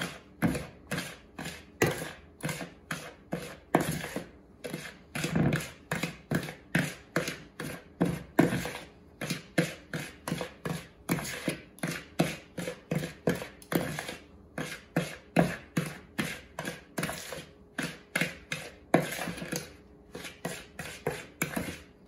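Two table knives cutting butter into a crumbly flour-and-sugar mixture in a plastic mixing bowl: quick, even scraping strokes, about three a second.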